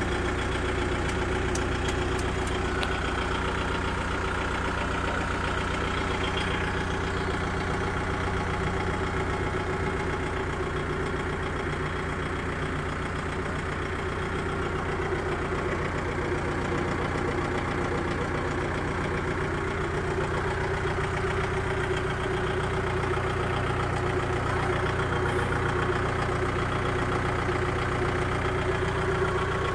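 Kubota MU5504 tractor's four-cylinder diesel engine running steadily at low revs, just over 1,000 rpm.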